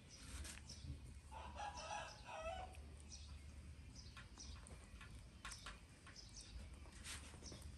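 A rooster crows once, faintly, for about a second and a half, starting just over a second in. A low steady hum and a few small clicks lie underneath.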